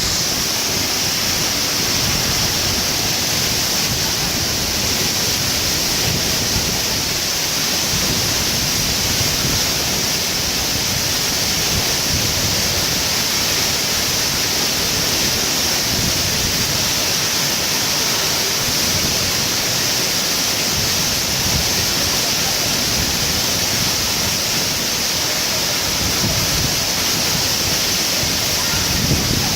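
Waterfall: a loud, steady rush of falling water with an even hiss.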